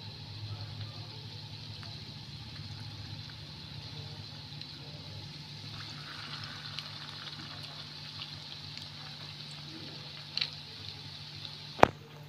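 Hot oil sizzling steadily with small crackles around flour-coated bread rolls deep-frying in a pan, over a steady low hum. A single sharp click comes near the end.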